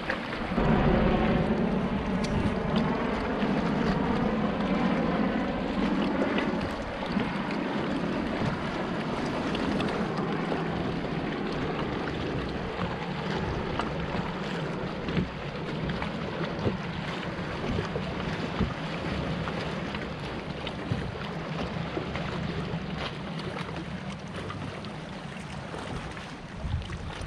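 Boat motor running under way, with wind noise on the microphone.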